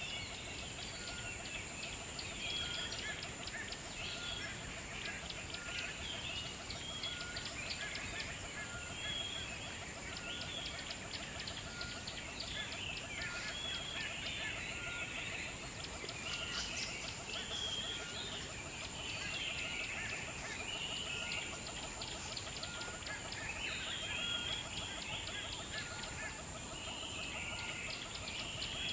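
Birds calling and chirping continuously, with one short note repeating about once a second under a steady high-pitched hiss.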